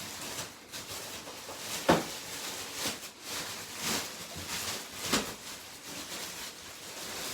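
Packaging being handled and rustling, with a few sharp knocks, the loudest about two seconds in and another about five seconds in.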